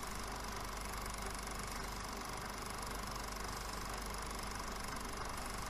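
Steady hum and hiss with nothing else in it: the background noise of a silent film's VHS transfer.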